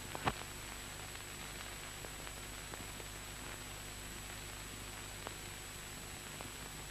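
Steady hiss and low hum of an old film soundtrack, with a sharp click just after the start and a few faint clicks later.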